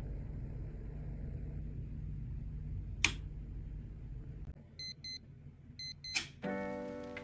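A switch clicks on the capsule's bedside control panel, then two pairs of short electronic beeps as the built-in clock is set, over a low hum that stops partway through. A second click follows, and music begins near the end.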